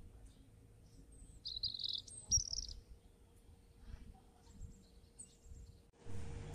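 A bird chirping, a quick run of high calls about a second and a half in, over faint background noise. A short burst of noise comes near the end.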